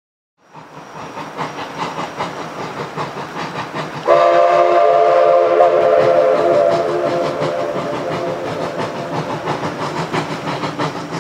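Steam locomotive working hard, its exhaust beating in a fast rhythm. About four seconds in it blows a long, loud steam whistle that fades away after a few seconds while the exhaust beats go on.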